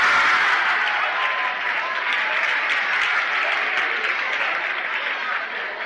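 Audience applauding, with a few voices in the crowd. The clapping is loudest at the start and slowly dies down.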